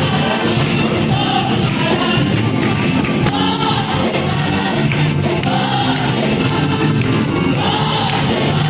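High school choir singing gospel music, loud and unbroken.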